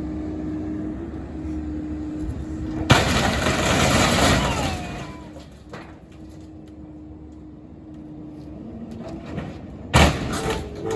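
Mini excavator engine running steadily, then about three seconds in a sudden loud crash of wood cracking and breaking, with creaking, as part of the old shed is pushed over; the engine runs on more quietly and another sharp crash comes near the end.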